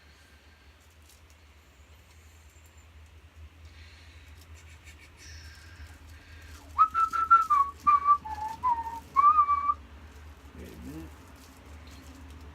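A person whistling a short tune of several held, sliding notes for about three seconds, starting about seven seconds in, with faint clicks and rustling before it.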